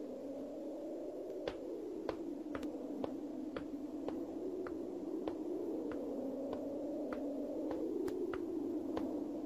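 Footsteps of hard-soled shoes on stone paving, about two steps a second, over a low droning sound that slowly swells up and down in pitch.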